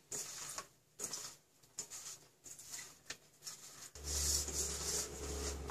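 Bare hand tossing and rubbing spice-coated bitter gourd slices in a steel plate: soft, irregular rustling and patter of the slices against the metal, in short bursts with pauses. A low steady hum comes in about four seconds in.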